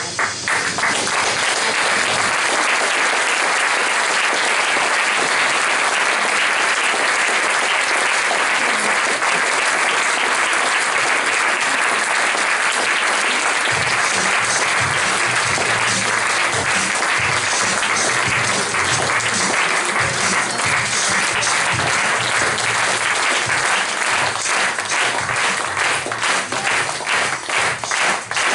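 Audience applauding, starting suddenly and going on steadily. About halfway through, music with a bass line comes in under the clapping, and near the end the individual claps grow more distinct.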